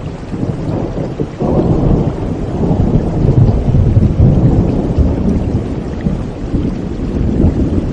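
A deep rolling rumble over a steady wash of water noise. It swells sharply about one and a half seconds in and rolls on for several seconds before easing off.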